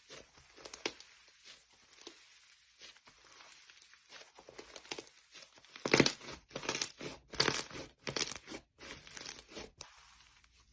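Slime being worked by hand: quick sticky crackles and pops. They are faint and sparse at first, then come in a denser, louder run from about six seconds in.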